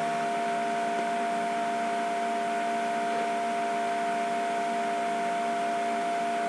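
Steady background hiss with a constant hum at several fixed pitches, one high note standing out, unchanging throughout.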